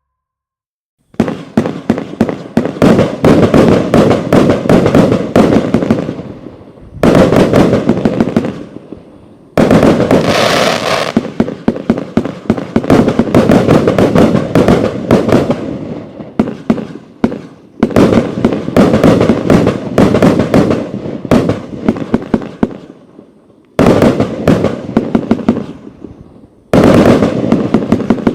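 Riakeo 'Shameless' 101-shot, 30 mm compact fireworks cake firing: loud, rapid strings of shots and bursts, starting about a second in and coming in several waves with short lulls between them.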